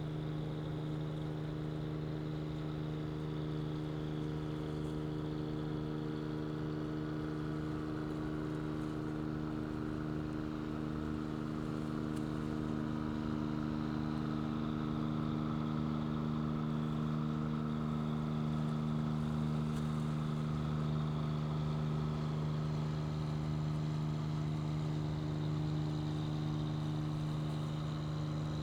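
Large car ferry's diesel engines droning steadily as it passes, a low hum of several steady tones that swells slightly through the middle.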